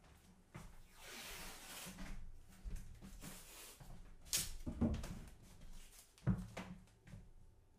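Blue painter's tape being pulled off its roll, coming away in ripping stretches, with a few knocks from handling on the table.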